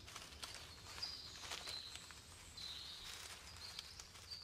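Faint woodland ambience: several short, high bird chirps about once a second, with light rustling clicks in the leaf litter.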